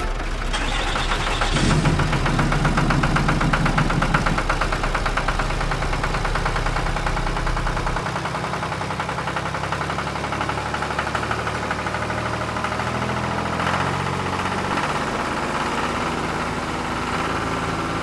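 Diesel tractor engine running steadily with a fast, even knocking beat.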